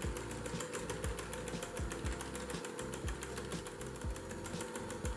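Electric hand mixer running steadily, its beaters whirring through egg batter in a glass bowl with a fast, even ticking rattle, blending in the oil until smooth.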